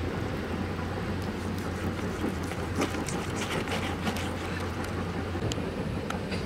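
Raw pork being sliced by hand against a fixed curved blade, faint scattered cutting clicks over a steady low rumble.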